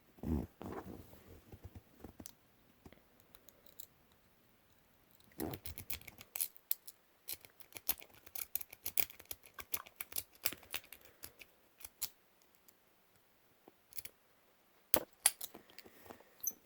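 A lock-pick rake scrubbed in and out of a padlock's keyway: a quick run of small metallic clicks and scrapes that goes on for several seconds, with a few more clicks near the end. A dull knock comes at the start.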